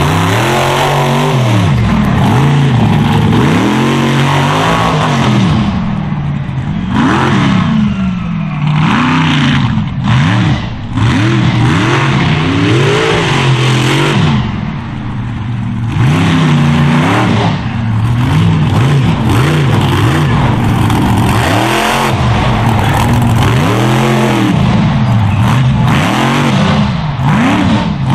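Mega truck engine revving hard over and over, its pitch swinging up and falling back in repeated swells as the truck tears around the dirt.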